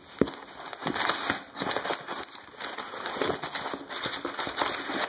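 A cardboard shipping box and its contents being handled and rummaged through: a steady run of irregular rustling, crinkling and crackling, with small clicks.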